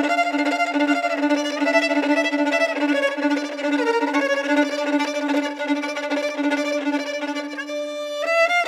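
Film score music: a violin melody over a steady, pulsing low drone note. The drone drops out near the end.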